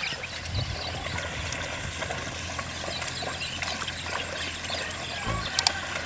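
Muddy water sloshing and splashing as a pair of bullocks drag a wooden plough through a flooded paddy field, with small birds chirping throughout. Two sharp mouse clicks sound near the end.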